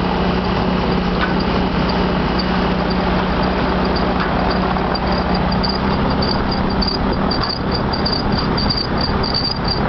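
Gyrocopter engine running steadily, heard from the open cockpit on the ground, with a strong even drone and wind noise. From about halfway through, a faint high chirp repeats several times a second.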